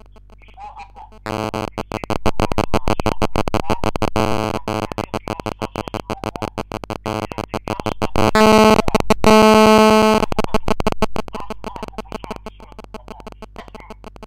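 Mobile phone radio interference picked up by the microphone: a harsh buzzing chatter of rapid pulses that starts about a second in, swells to a loud steady buzz in the middle, and tapers off near the end.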